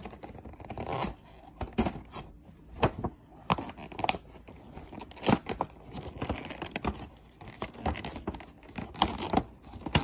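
Cardboard and clear plastic blister packaging of a toy car multipack being picked at and torn open by hand: irregular scrapes, crinkles and sharp clicks.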